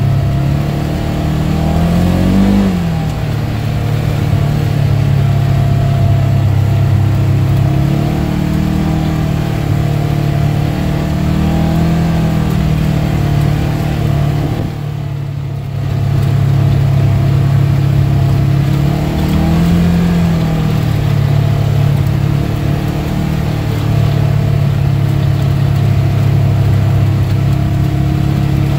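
Polaris General side-by-side's engine running steadily under way on a dirt trail, heard from the driver's seat. Its pitch swells briefly twice, once early and once about two-thirds in, and the sound drops off for a moment around the middle as the throttle eases.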